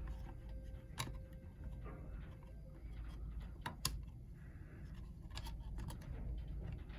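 Scattered light clicks and taps of small laptop parts and tools being handled during a Chromebook repair, with a sharp double click just before four seconds in, over a steady low hum.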